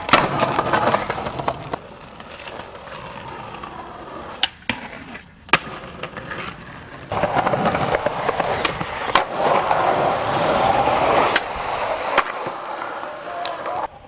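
Skateboard wheels rolling on concrete and asphalt, with several sharp clacks of the board's tail popping and landing spread through.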